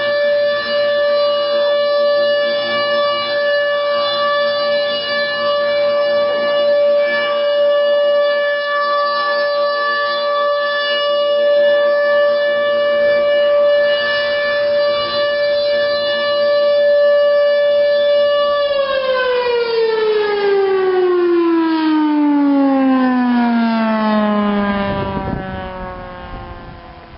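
Federal Signal Thunderbolt 1000 tornado siren sounding a steady alert tone at full speed. About two-thirds of the way through it cuts out and winds down, its pitch falling steadily as it fades.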